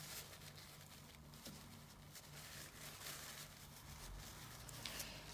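Near silence: the faint rustle of a paper nail wipe rubbed over a gel-polished fingernail, with a few soft ticks.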